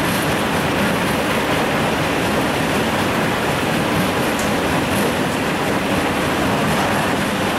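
Metso Nordberg LT125 mobile jaw crusher crushing rock, together with a CAT 365CL excavator's diesel engine running as it feeds the hopper: a loud, steady mass of machinery noise.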